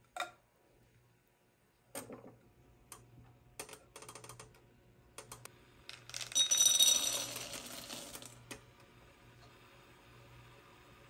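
Semi-sweet chocolate chips poured into a glass bowl, clattering against the glass for about two seconds with a high ringing tone. Before it come a few light knocks and clicks of glass and cookware.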